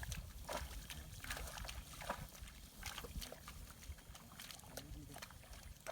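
Farmyard livestock ambience: scattered irregular clicks and knocks with a few faint short low animal calls.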